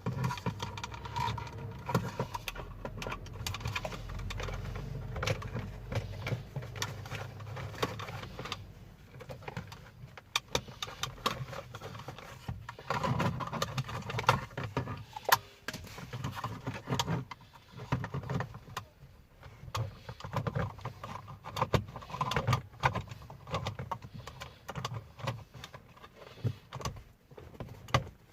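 Hands refitting a USB charging port and its wiring into the car's dashboard lighter-socket opening: irregular plastic clicks, knocks and rattles of trim and parts being handled and pressed into place.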